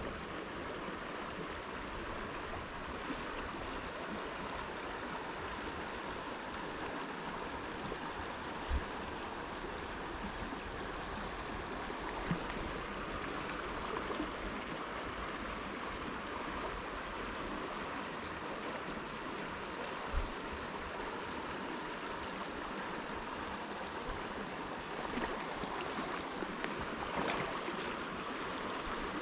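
Creek water flowing steadily over a shallow riffle, with a few brief low thumps.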